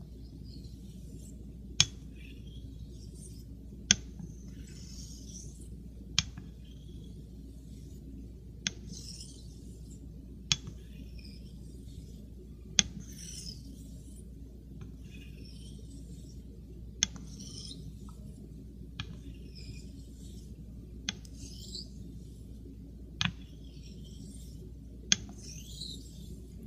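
Straight razor being honed on a wet Shapton Pro synthetic waterstone: soft rasping swishes as the edge slides across the stone, with a sharp click about every two seconds as the spine is flipped over and taps down for the next stroke.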